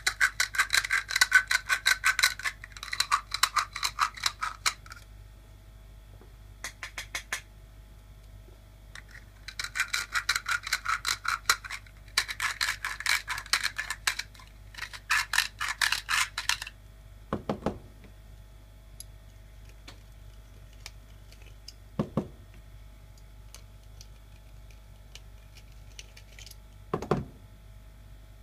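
Cut end of a copper pipe being deburred with a handheld inner-outer deburring tool: bursts of rapid rasping scrapes as the tool is twisted back and forth, cleaning the burr off the cut before fitting. In the second half come three separate dull knocks.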